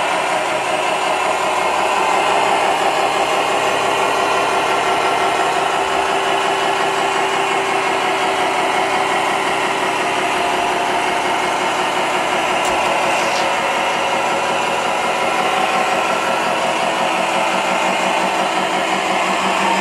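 Radio-controlled construction machine running steadily, an engine sound at a constant idle-like pitch.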